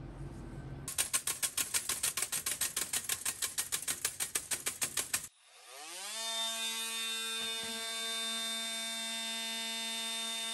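Sieving metal powder: a rapid, even rattle of about seven strikes a second, then, after a sudden cut, an electric motor spinning up, rising in pitch and settling into a steady hum.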